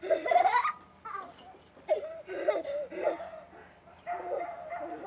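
Young children's high-pitched giggling and squealing, with a rising squeal at the start followed by short bursts of laughter.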